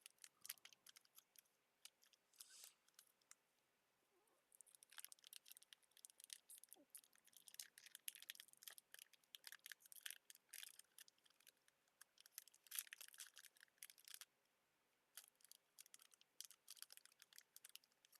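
Faint, quick clicks and scratchy slides of trading cards being handled and flipped through, coming in clusters with short pauses between them.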